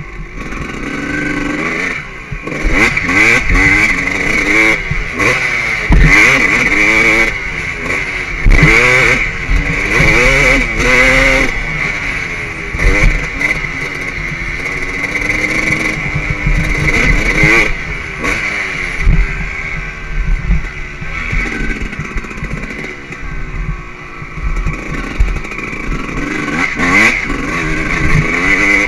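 2003 Suzuki RM 250's two-stroke single-cylinder engine revving up and dropping back over and over as the bike accelerates, shifts and backs off around a motocross track.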